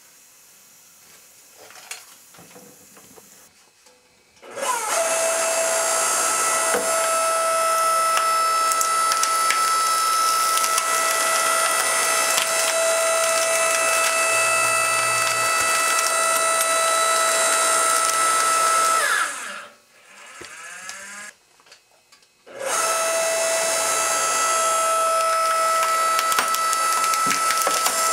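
Log splitter running with a steady whine while its wedge forces through wooden boards and old shoes, the wood cracking and splintering. It starts about four seconds in, winds down and stops about two-thirds of the way through, and starts again a few seconds later.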